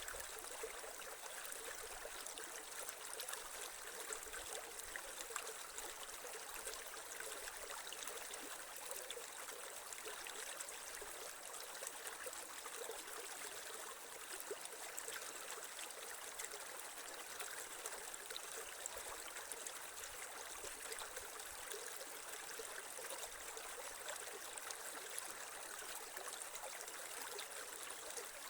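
Creek water flowing and trickling steadily, with many small splashes.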